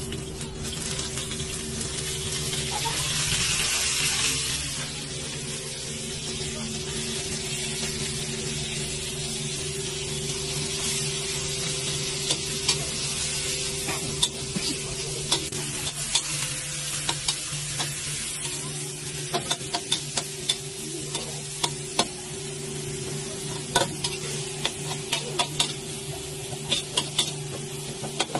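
Sliced meat hits hot oil, chili and garlic in a wok and sizzles loudly, the sizzle swelling for a few seconds and then settling into steady frying. A metal spatula stirs and scrapes the wok, with frequent sharp taps and clicks against the metal in the second half.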